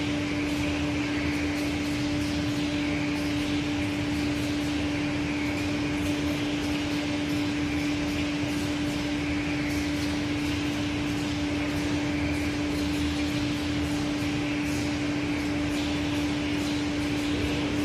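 1988 Aschersleben SZ guideway grinding machine running: a steady hum under a broad hiss, the higher part of the hiss swelling and fading every few seconds.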